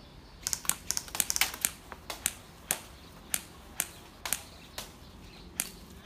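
Airsoft guns firing: a quick volley of sharp clicking shots about half a second in, then single shots roughly every half second.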